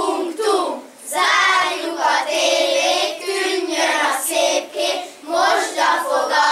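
A group of children singing together in unison, in short phrases with brief breaks between them.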